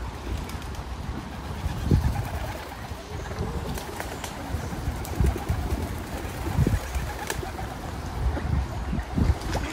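Pigeons cooing from a tree, over low, gusty rumbling that swells every second or two.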